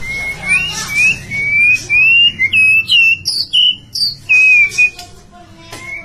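White-rumped shama singing: a quick run of loud, clear whistled phrases, mostly short rising notes, with a few sharper, harsher notes mixed in. The song drops away about five seconds in, leaving only faint notes.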